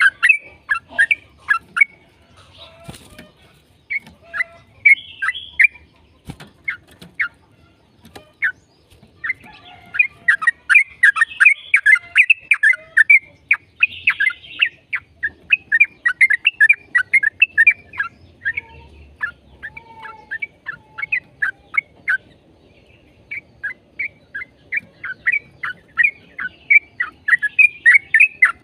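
Yellow-vented bulbul (trucukan) singing its fast 'ropel' song: rapid runs of short, sharp chirping notes in bursts of several seconds, broken by brief pauses.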